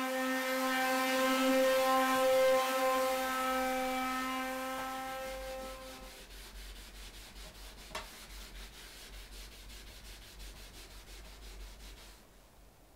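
Small electric orbital sander running with a steady hum and hiss that fades away by about halfway through. Then faint, quick, regular rubbing strokes of wood stain being brushed onto bare pine framework, with one light tap about eight seconds in.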